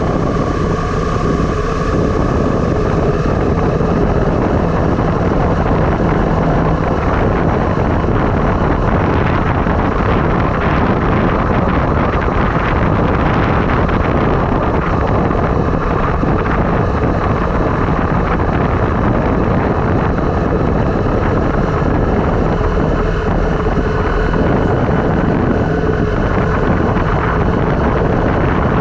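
Loud, steady rush of wind buffeting an action-camera microphone, mixed with road rumble during a downhill ride.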